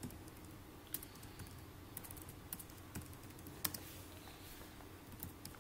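Faint keystrokes on a computer keyboard, a word being typed slowly, with irregular gaps between the clicks.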